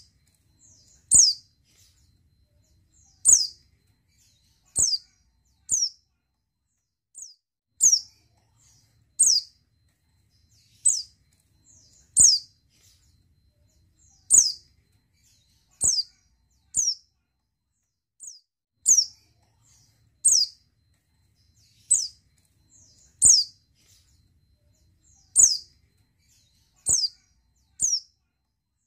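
Female pleci (white-eye) giving single short, high, downward-sliding call notes, one every one to two seconds. These are the calls of a female in breeding condition.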